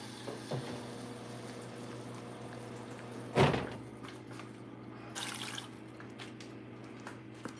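A little water in a saucepan holding crabs, making faint liquid and dripping sounds under a steady hum. There is a brief louder rush about three and a half seconds in and a short fainter hiss about five seconds in.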